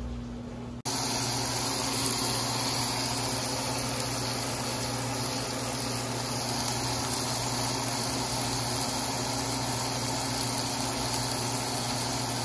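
Two whole trout frying in hot butter in a stainless steel pan, a steady sizzle that starts suddenly about a second in, with a low steady hum underneath.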